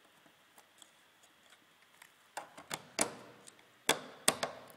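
Handheld wheel-type can opener clicking and clacking against the metal rim of a tin can as it is clamped on and worked. A few faint ticks, then from about halfway a run of sharp metallic clicks, three of them loud.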